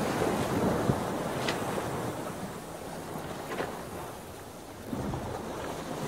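Ocean waves and wind: a rushing noise that swells and fades, with a few faint short high sounds over it.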